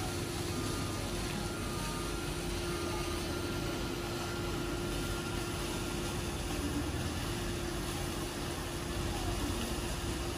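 Steady low mechanical hum with a constant mid-pitched tone, like a vehicle or machine running.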